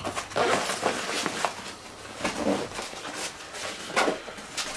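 Helikon-Tex Essential Kit Bag being handled in the hands: irregular fabric rustles and scuffs.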